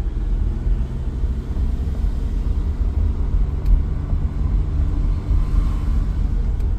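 2002 Acura TL Type S's 3.2-litre V6 running under way with a steady low rumble while the car is held in first gear, unable to upshift because its speed sensor is disconnected. A faint whine climbs in pitch over the second half, and there is a single light tick about three and a half seconds in.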